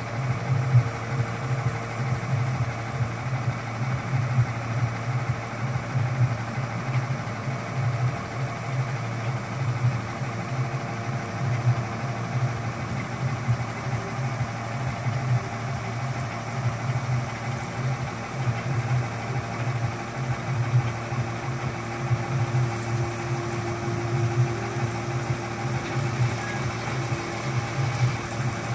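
Tata Prima tipper truck's diesel engine running steadily, driving the hydraulic hoist as the dump body is raised.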